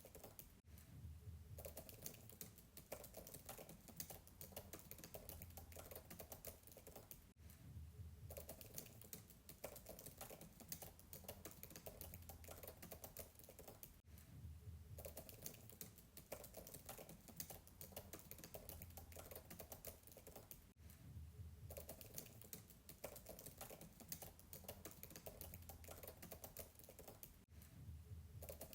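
Fast typing on a MacBook keyboard, heard faint and from a distance: a dense run of soft keystroke clicks, with a short break about every seven seconds.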